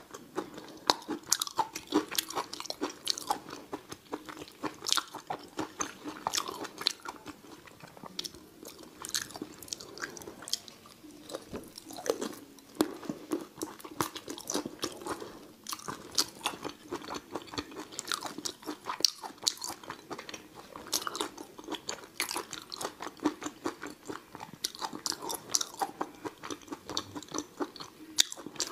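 A person biting, sucking and chewing spicy raw shrimp in chili oil, with many quick, irregular sharp clicks and crunches from the shells and mouth.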